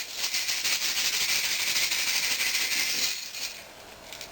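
Copper BBs rattling as they are scattered out onto the floor, a dense steady rattle that stops about three seconds in.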